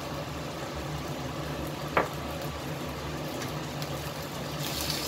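Chicken curry with freshly added water heating in a wok on a gas stove, a steady simmering hiss as it comes up toward the boil. A single sharp tap about two seconds in.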